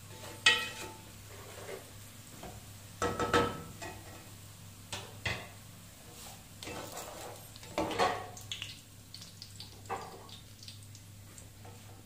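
Wooden and slotted spoons scraping and knocking against an aluminium pot as crisp fried onions are stirred and lifted out of hot oil, in several separate scrapes and knocks, with oil sizzling under them.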